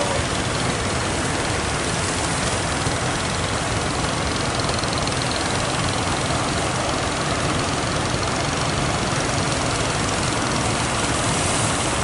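Steady, unbroken rush of breaking surf and wind, with the low rumble of fishing-boat engines under it.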